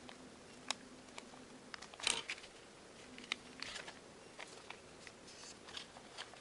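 A sheet of origami paper being handled and folded by hand: scattered faint taps and crinkles of the paper, the loudest a brief rustle about two seconds in.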